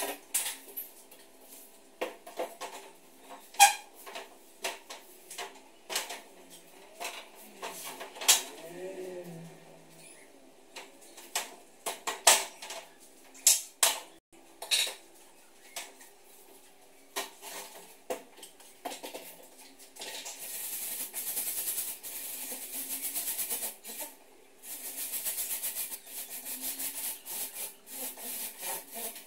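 Metal drywall studs being handled and fitted into a steel frame: scattered sharp metallic clanks and taps, some ringing briefly. Near the end come two stretches of rasping scraping, a few seconds each.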